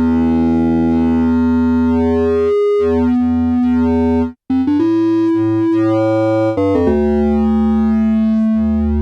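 Modal Electronics Cobalt8 virtual analog synthesizer playing held chords over a deep bass note. The chord changes about halfway through, after a brief break, and again about two-thirds of the way in.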